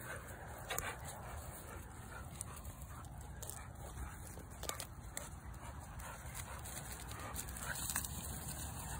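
A pit bull-type hunting dog making faint vocal sounds, with a few sharp clicks and crackles over a steady low rumble.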